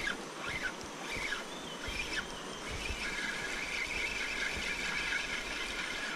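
Running stream water with wildlife calls: a few quick chirps, then a steady high drone from about three seconds in.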